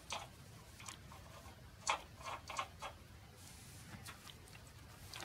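A few faint metallic clicks and taps, the loudest just under two seconds in, from nuts being threaded onto bolts by hand on a steel utility wagon's frame.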